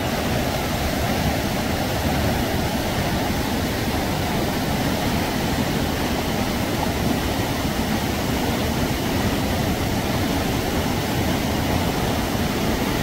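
Steady rushing of flowing stream water, even and unbroken.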